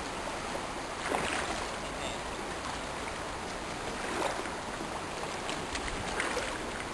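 River water flowing and rippling in a steady rush, with a few faint brief clicks over it.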